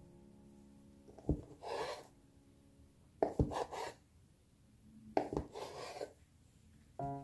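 A kitchen knife cutting through a rolled log of soft bread dough three times, each cut ending in a sharp tap of the blade on a plastic cutting board, followed by a short rustling scrape.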